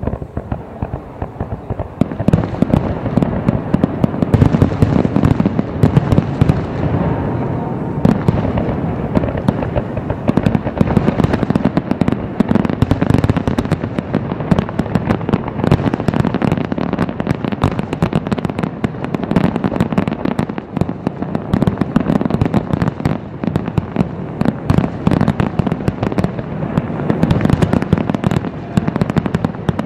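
Aerial fireworks shells bursting in rapid, overlapping succession. About two seconds in they build into a near-continuous barrage of loud bangs.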